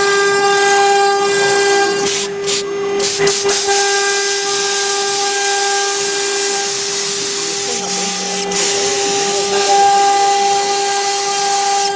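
CNC router's 3 kW water-cooled spindle running at a steady high whine while the bit engraves MDF, with a loud hiss from the cut. Higher overtones fade in and out as the cut changes, with a few short breaks about two to three seconds in.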